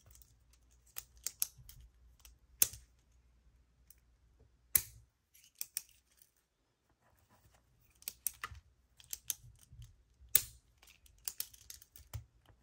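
Zebra Sarasa Clip retractable gel pens being handled: irregular sharp clicks and taps as pens are clicked, picked up and set down, with a few louder clicks standing out.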